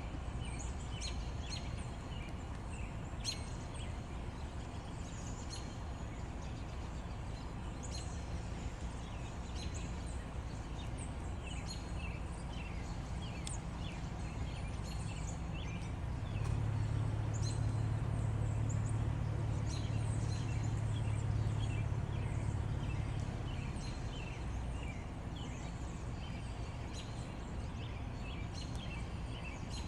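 Many short bird chirps and calls over a steady low hum; the hum grows louder for several seconds midway through.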